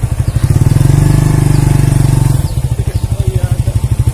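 Motorcycle engine running with a steady rapid pulse, growing louder about half a second in and dropping back about two and a half seconds in.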